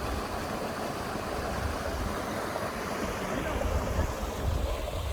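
Steady rush of water, with wind buffeting the microphone in uneven low rumbles.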